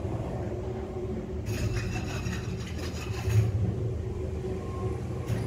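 Passenger lift car travelling down its shaft, a steady low rumble from inside the cabin, with a stretch of higher hiss about a second and a half in.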